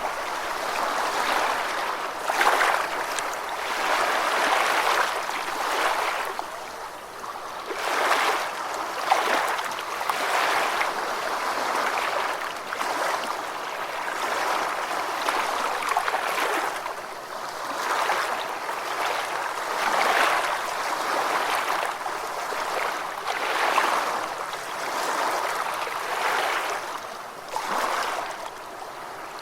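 Gentle ocean waves washing onto a beach, a continuous wash that swells and eases every couple of seconds.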